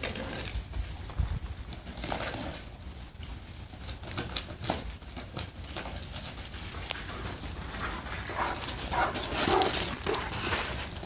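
Great Dane and ridgeback–Great Dane mix playing on ice-crusted snow: paws crunch and scrape on the icy crust in quick, irregular clicks. A dog makes brief whining or playful vocal sounds near the end.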